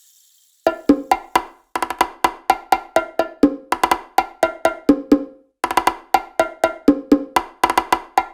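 Sampled percussion from a Roland SPD-30 Octapad preset playing a quick rhythmic pattern of short, pitched wood-block-like hits. The pattern starts about a second in and breaks off briefly twice.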